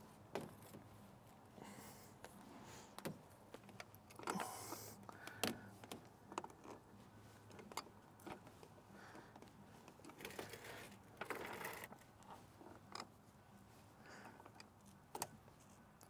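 Faint clicks, rattles and scrapes of hands working PVC fittings and clear vinyl tubing, with light metallic clinks of a hand tool. The clicks bunch up about four to five and a half seconds in and again around ten to eleven seconds in, over a faint steady low hum.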